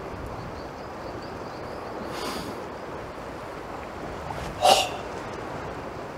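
A karateka's forceful exhalations during a kata, a softer one about two seconds in and a short, much louder one near the three-quarter mark, over steady wind noise on the microphone.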